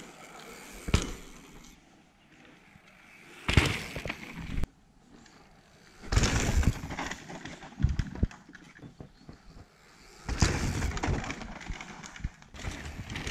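Mountain bike ridden on a dirt jump trail: several separate bursts of tyre noise on packed dirt and knocks from the bike, each starting suddenly, between quieter gaps.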